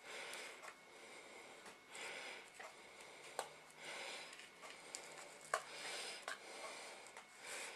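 A person breathing steadily, about one breath every two seconds, with a few sharp clicks and crinkles from an aluminium foil tray as pizza dough is pressed into it.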